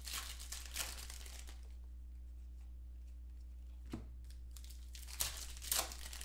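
Clear plastic wrapper of a football trading card pack being torn open and crinkled by hand, in rustling bursts near the start and again near the end, with a single tap about four seconds in, over a steady low hum.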